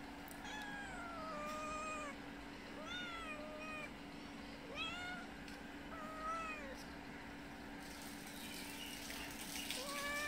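Cat meowing repeatedly, about six falling meows spaced a second or so apart, asking for food. A steady low hum runs underneath.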